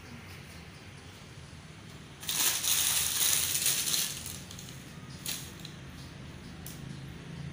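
Clear plastic bag crinkling and rustling in the hand for about two seconds. A single sharp click follows about a second later.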